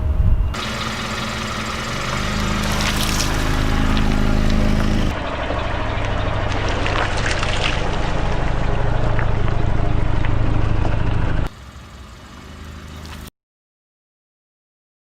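Car engine running slowly with a steady low hum while the tyre rolls over and crushes floral foam, giving scattered crackles. The sound changes abruptly at several cuts, drops to a quieter stretch, and goes completely silent for the last couple of seconds.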